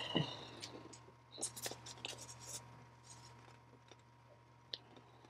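Faint handling noise of hands holding and turning a laptop: light rubbing and small clicks during the first two seconds or so, then quieter, with a couple of single ticks later on.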